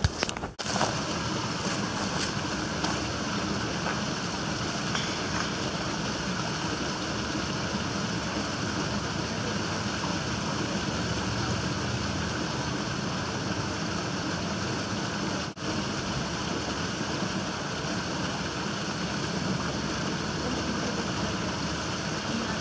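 A steady rushing noise, even from low to high pitch, with a brief drop about fifteen seconds in.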